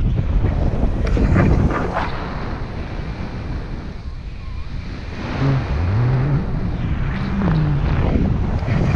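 Wind buffeting the camera's microphone in flight under a tandem paraglider: a steady, dense rumble that eases a little midway.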